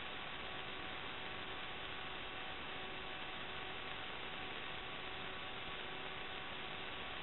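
Steady electronic static hiss with a faint, unchanging hum of a few thin tones: the noise floor of an SD DVR's audio channel recording no real sound.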